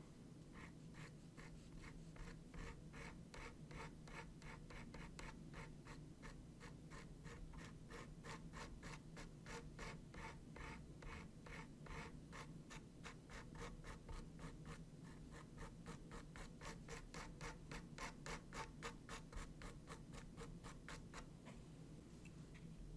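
Wedge makeup sponge dabbed again and again on a small textured canvas, laying on paint: faint, scratchy pats in an even rhythm of about three to four a second, stopping shortly before the end.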